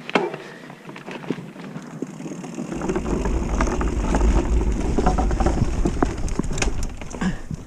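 Mountain bike rolling across a wooden-plank suspension bridge, the loose planks knocking and clattering under the tyres, with a heavy low rumble joining in about three seconds in.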